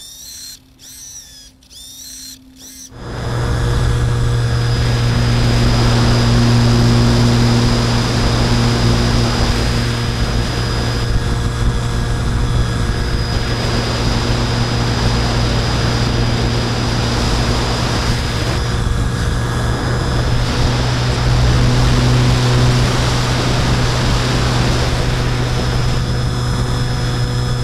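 Bixler 2 model plane's electric motor and propeller running steadily in flight, heard from the camera mounted on the plane, with a constant low hum, a thin high whine and airflow noise, swelling slightly now and then with throttle. Before it, during the first few seconds, a few faint short clicks.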